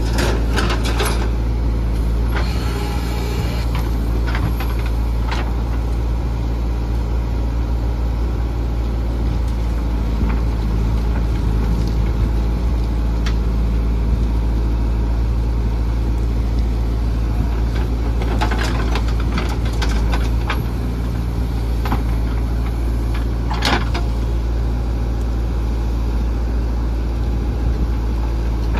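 JCB 3DX backhoe loader's diesel engine running steadily as the backhoe digs and swings mud, with clanks and scrapes of the bucket and arm now and then, the sharpest late on.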